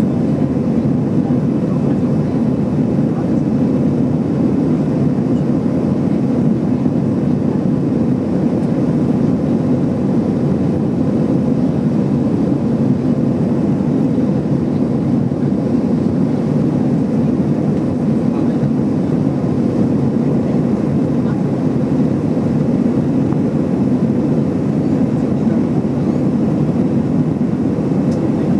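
Steady engine and airflow noise of an Airbus A320 in flight, heard inside the passenger cabin: an even, low rushing drone that holds level throughout.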